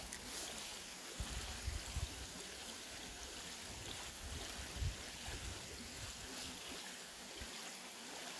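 Steady hiss of heavy rain, with a few brief low rumbles of wind on the microphone.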